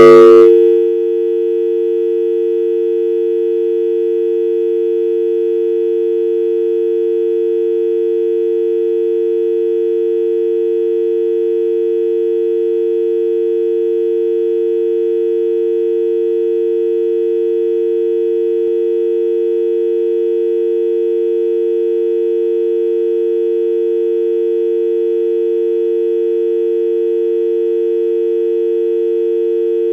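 UK telephone dial tone: a continuous, unbroken hum made of two steady low tones sounding together. It opens with a brief loud burst, then holds at one level.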